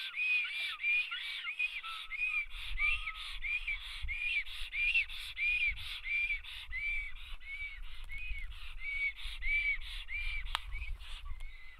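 Black storks at the nest giving a long, regular series of short wheezy whistles, each note rising and falling in pitch, about three notes every two seconds. A low rumble runs underneath from about two seconds in, and a single sharp click comes near the end.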